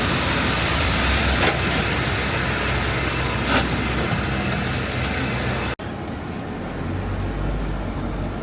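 Car on the road: steady engine and road noise. About two-thirds of the way through it cuts abruptly to a quieter, lower rumble.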